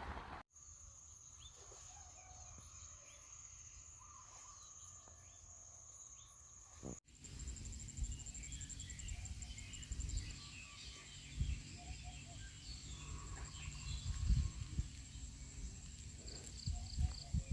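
Outdoor rural soundscape: insects keep up a high, steady trill while small birds chirp here and there. About seven seconds in the sound cuts to another spot, where the insect trill pulses and the birdsong is busier, over a low rumble.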